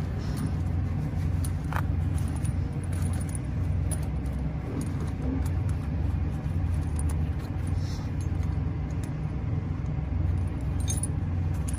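Steel snow-chain links clinking now and then as they are hooked up on a semi truck's tire, over the steady low rumble of the truck idling.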